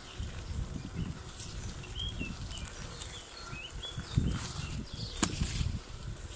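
Wind and movement rumbling on the microphone of a camera carried on a moving Onewheel through tall grass, with a few short bird chirps about two to three seconds in and a sharp click about five seconds in.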